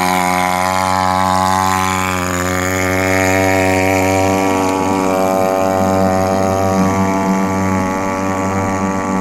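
Small outboard motor on a kayak running steadily at an even pitch, driving the kayak along the water.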